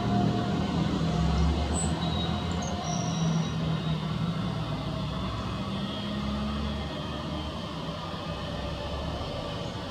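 Airbus A320's IAE V2500 turbofan engines running at taxi idle as the airliner rolls slowly and turns: a steady jet rumble that fades slightly as it goes on.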